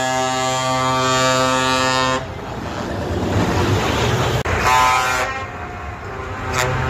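Scania truck air horns sounding at a truck parade: one long steady blast that cuts off about two seconds in, then a shorter blast about five seconds in and a brief toot near the end. Passing truck engines rumble between the blasts.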